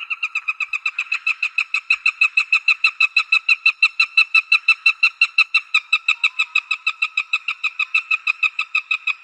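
Stork bill-clattering: a long, even rattle of rapid clacks, about seven a second, with a hollow ringing tone to each clack.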